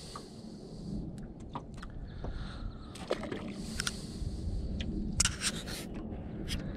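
Handling noise in a small fishing boat: scraping and rubbing, with scattered sharp clicks and a louder cluster of clicks a little over five seconds in, over a low steady rumble.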